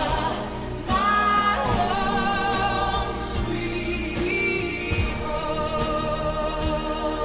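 Music: a song with sung, choir-like vocals over a sustained backing, with sharp percussive hits throughout.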